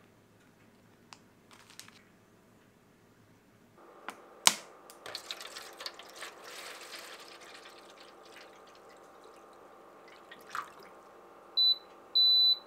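Water pouring from a plastic bottle into a foil tray, starting after a sharp click about four and a half seconds in and tapering off. Near the end an electric ceramic cooker's control panel beeps twice, a short beep and then a longer one, as it is switched on.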